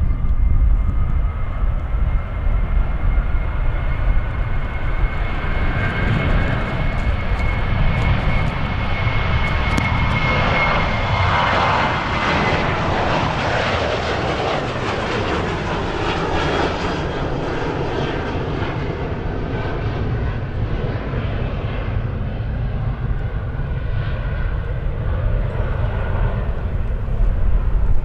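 Jet airliner passing: a high engine whine climbs and holds, the broad engine noise swells to a peak about halfway through, then slowly fades as the aircraft moves away.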